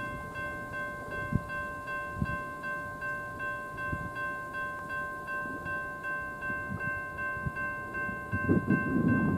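Railroad grade-crossing bell ringing, a fast even dinging of nearly three strikes a second over a steady ring. A few low thumps and a louder low rumble near the end.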